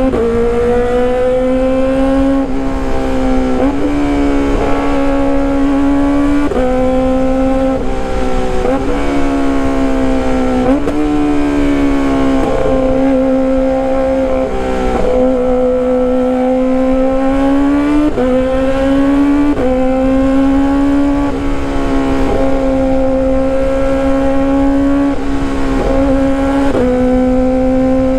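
Kawasaki ZX-25R's 250 cc inline-four, with a loud aftermarket exhaust, running at high revs under way. The engine note holds a high, fairly steady pitch and dips briefly before climbing back every couple of seconds, about a dozen times.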